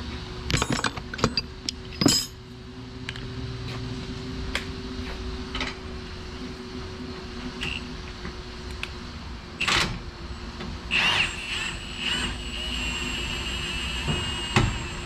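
Sharp metal clinks and knocks of tools on a car's rear suspension in the first couple of seconds, then a cordless power tool running in short bursts from about ten seconds in, settling into a steady high whine near the end.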